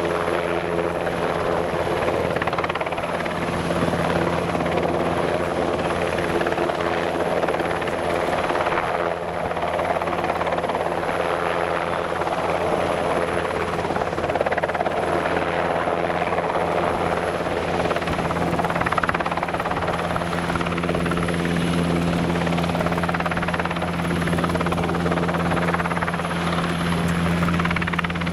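NH90 helicopter hovering: a steady drone of rotor and turbine noise with a thin high-pitched whine over it, swelling slightly now and then.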